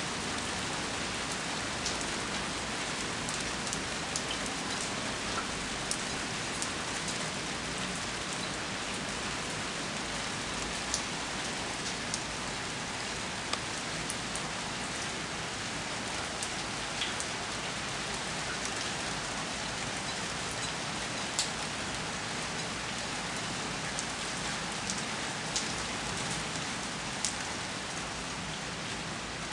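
Steady rain: an even hiss with scattered sharp drop ticks on top.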